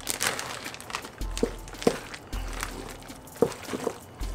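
Wooden spoon stirring shredded cheddar into thick, creamy spaghetti in a mixing bowl: wet squishing and scraping, with a few short knocks of the spoon against the bowl.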